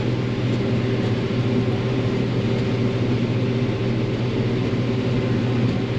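Combine harvester running steadily while harvesting corn: an even mechanical drone with a strong low hum.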